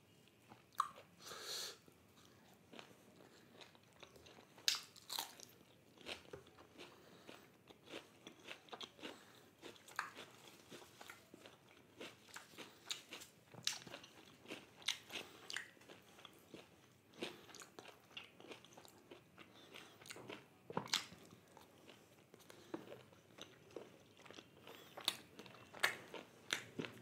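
Close-miked mouth sounds of a person eating chicken in a thick gravy: irregular wet smacks and clicks of chewing and biting, with a few louder smacks scattered throughout.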